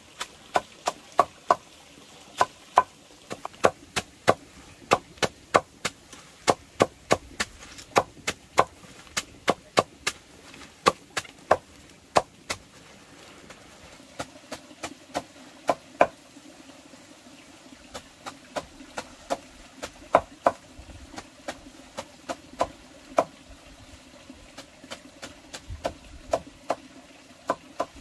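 A cleaver chopping wild greens, leaves and stems, for pig feed: sharp chops about twice a second, thinning out and pausing briefly after about twelve seconds.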